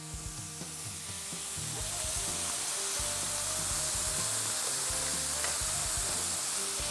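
Thin veal escalopes sizzling as they sear on a hot ridged grill pan while being turned. The sizzle builds over the first two seconds, then holds steady.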